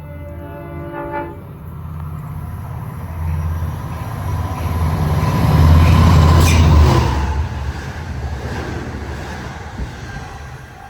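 Long Island Rail Road train sounding its horn briefly at the start, then passing close by with a rumble that builds to a peak about six seconds in, with a sharp clank at the loudest point, before fading away.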